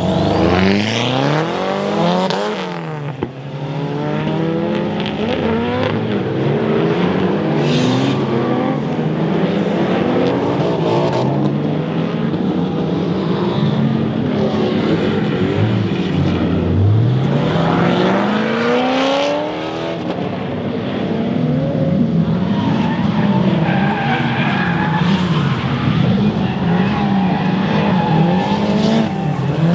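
Boosted drift car engines revving hard and rising and falling in pitch again and again while the tyres squeal and skid through slides. There are long climbs in revs near the start and about two-thirds of the way through.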